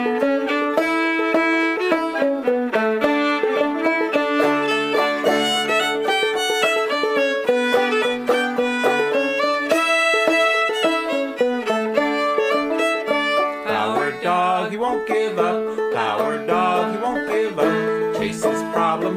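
Instrumental string-band theme music with quick runs of plucked notes under a bowed melody; about fourteen seconds in, the bowed line turns more wavering and a lower part comes in.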